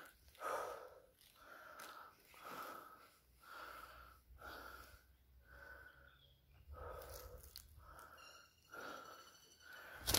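A person panting close to the microphone, quick even breaths about one and a half a second.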